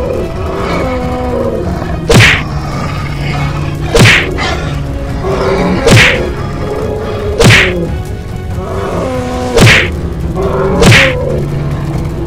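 A series of six heavy hit sound effects, each a sharp smack that stands out above the rest, coming every one and a half to two seconds over steady background music, as in a cartoon fight.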